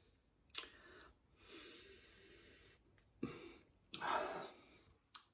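A man drinking beer from a glass: soft sips and swallows, then a breathy exhale about four seconds in, after he lowers the glass.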